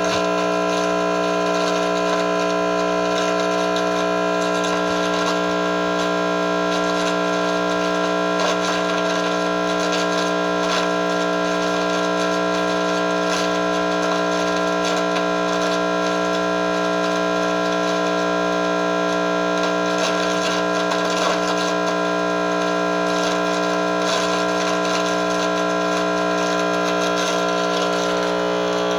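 Handheld RF detector's speaker giving a steady electronic buzz: several unchanging tones over hiss, which the owner takes for incoming microwave signals.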